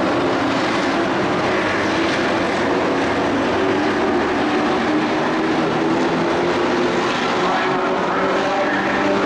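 Several dirt-track race trucks running at speed around the oval. Their engines blend into a steady, loud drone, with overlapping engine tones that shift in pitch as the pack goes around.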